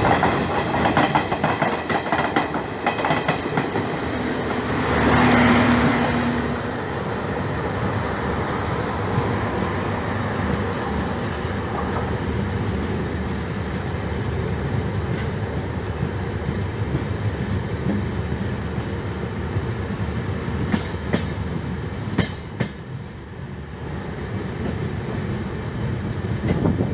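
Moving passenger train heard from an open coach doorway: a steady rumble of wheels on rail with clickety-clack over the rail joints, and a rush of air. About five seconds in there is a louder swell with a brief low tone.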